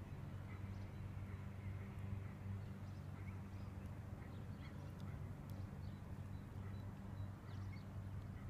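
Eight-week-old Border Collie puppy chewing a raw trout, with scattered faint crunching clicks, over a steady low hum; small bird chirps here and there.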